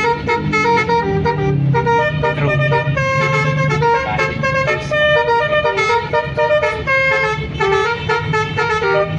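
Basuri telolet melody horn on a bus playing a tune, a run of held notes stepping up and down several times a second without a break.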